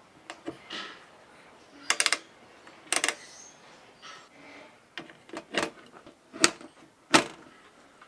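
Sharp mechanical clicks from a knob and switch being worked on a vintage Philco tube tester: two quick runs of three or four clicks about two and three seconds in, then several single clicks.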